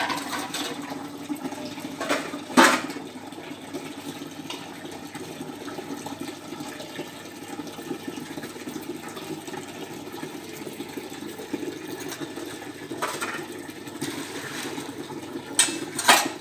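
Water running steadily as steel dishes and pots are washed by hand, with a few sharp clanks of metal utensils, the loudest just under three seconds in and near the end.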